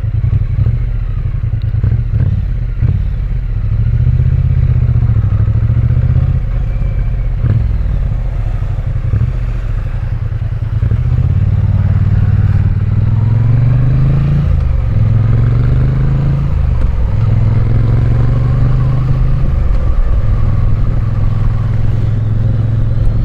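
Triumph Bonneville parallel-twin engine running under way, revs rising and falling as it pulls through the gears, with a climbing pull about halfway through.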